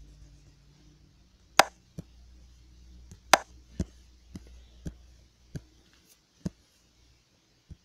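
About nine sharp taps on a tablet's touchscreen at an uneven pace, the two loudest about one and a half and three seconds in.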